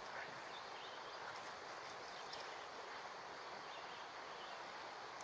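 Faint, steady outdoor background hiss with a few faint ticks.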